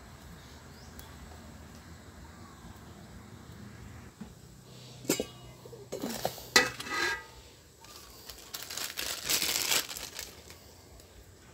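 Aluminium basin being handled and scraped by hand: a few sharp metallic clatters with some ringing start about five seconds in, then a stretch of plastic-bag rustling and scraping.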